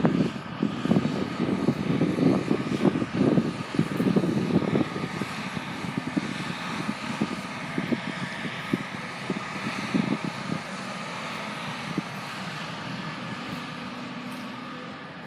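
Farm machine's engine running, with an uneven low chugging for the first five seconds or so, then steadier and gradually fading.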